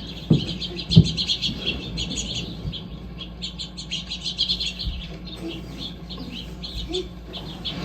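Many small birds chirping rapidly at once, the twittering of a flock at feeders, relayed through a loudspeaker. Two dull thumps come in the first second.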